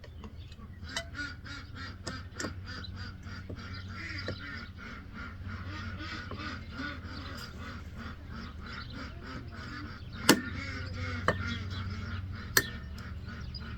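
Hand-tool work on a mini bike part being forced into place: a rapid run of short repeated strokes, about four a second, then three sharp knocks near the end.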